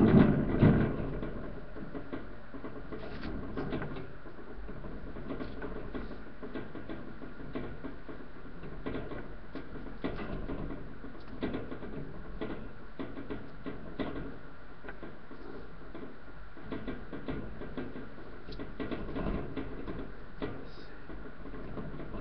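Boston terrier puppies scuffling and scrambling over newspaper in a wire pen: scattered small clicks, scratches and rustling. A louder bump of handling comes in the first second.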